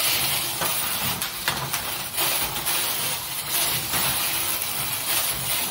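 Small electric motors of Hexbug BattleBots toy robots whirring steadily as they drive and spin their weapons, with scattered clicks and knocks of plastic parts striking each other and the arena.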